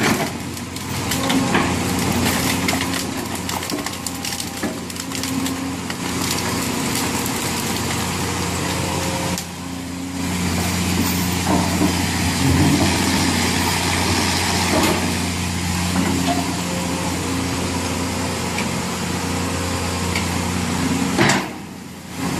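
Hydraulic excavator's diesel engine running steadily while its bucket tears apart a beaver dam, sticks cracking and splintering, with water rushing through the breach.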